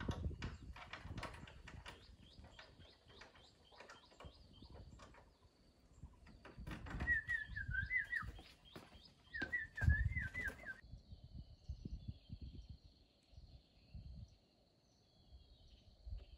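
Birds chirping: a fast run of repeated high chirps and two short warbled phrases, over scattered soft knocks and low thumps. About eleven seconds in this gives way abruptly to a quieter outdoor background with a steady high tone.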